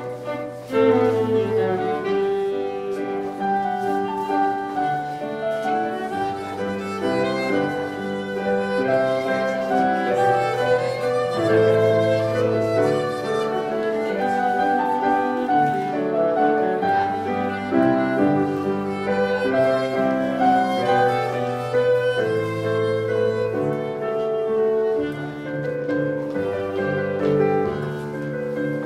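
English country dance tune played on violin with cello and piano, in a steady dance rhythm.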